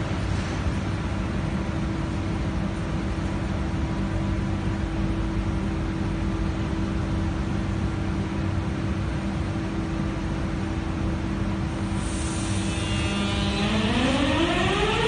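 Adtranz-Siemens A1 metro train standing with a steady low hum. A hiss comes in about twelve seconds in, then near the end its AEG GEATRAC GTO-VVVF traction inverter starts as the train pulls away, giving a whine of several tones that rise together in pitch.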